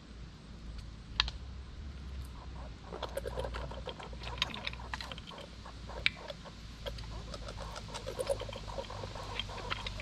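A squirrel gnawing a nut shell: quick, irregular crunches and clicks, coming in dense flurries from about three seconds in, with a couple of sharper cracks.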